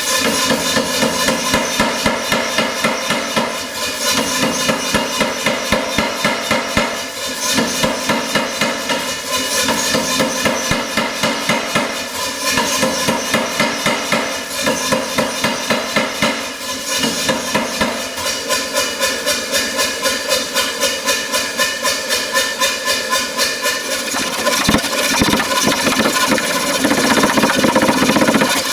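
Fast, even hammer blows on hot steel during forging, with a machine running underneath, typical of a mechanical power hammer at work. In the last few seconds the separate blows give way to a steadier running sound.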